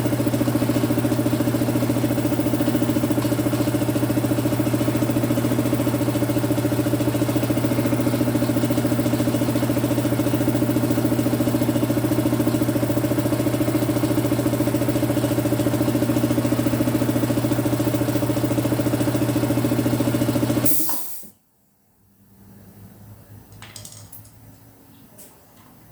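Belt-driven compressor running steadily, fitted with a new shorter belt after a loose, too-long one kept it from turning, then stopping suddenly about 21 seconds in. Only faint small sounds follow.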